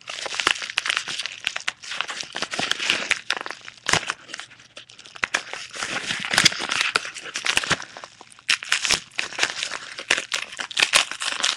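A mailed package being opened by hand: its wrapping crinkling, rustling and tearing in irregular bursts of crackle, easing briefly about four seconds in and again near eight seconds.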